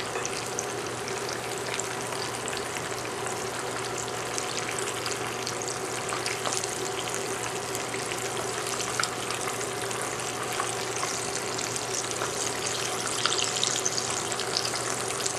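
Beef turnovers deep-frying in hot oil in a skillet: steady sizzling with fine crackling as the oil bubbles around the dough.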